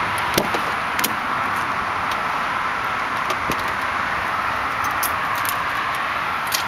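Driver's door of a BMW E36 M3 being opened: a few sharp clicks and knocks from the latch and handling over a steady background hiss.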